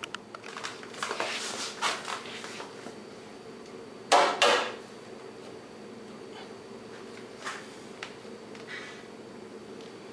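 Tools and hardware being handled at a workbench: scattered knocks and rattles, then two short, loud bursts about four seconds in and a few faint clicks, over a steady background buzz.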